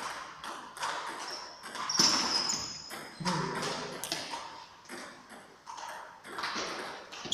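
Table tennis ball knocking back and forth off bats and the tabletop in a rally, a few sharp clicks a second, with one brighter ringing ping about two seconds in.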